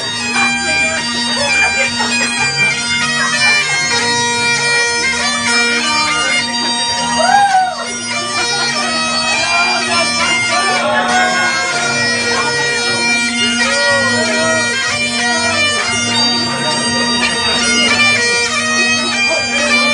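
Bagpipes playing a tune over their steady drone, with people talking around them.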